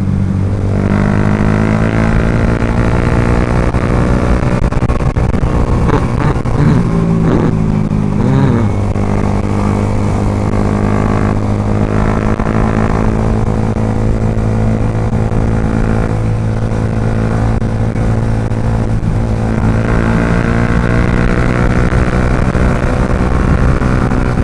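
Motorcycle engine running at fairly steady revs while riding, with a few brief swings in pitch about six to nine seconds in.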